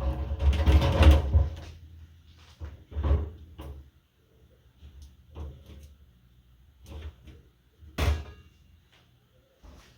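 A run of knocking and clunking, loud and dense for the first second and a half, then single knocks every second or two, the sharpest about eight seconds in.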